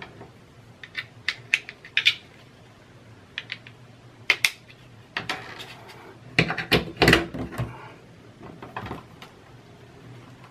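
Plastic clicks and knocks from a plug-in universal power adapter being handled, set to its next voltage and pushed back into a power strip socket. There are scattered light clicks and then the loudest knocks about six and a half to seven seconds in, as the plug goes home.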